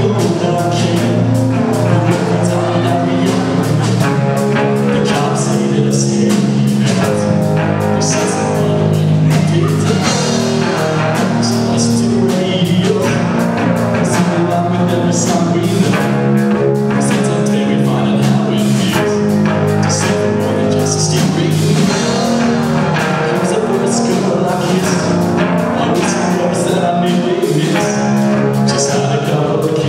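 Rock band playing live: guitar and drum kit with a singer, a steady beat.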